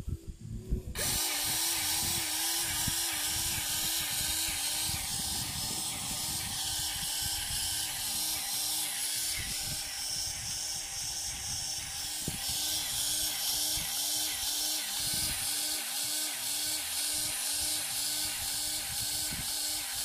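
Lincoln cordless grease gun's electric motor running, pumping grease with an even pulse a little under twice a second over a steady hiss. It starts about a second in.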